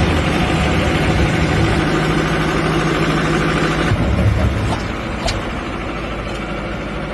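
An engine running steadily, its low note changing about four seconds in.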